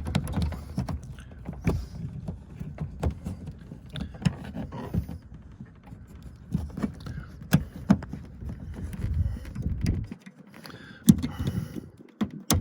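Hand work on a pickup's door: irregular small clicks and scrapes of a spring hook working the window crank's retaining spring while the door panel is pushed in, over a low rumble of handling that stops about ten seconds in.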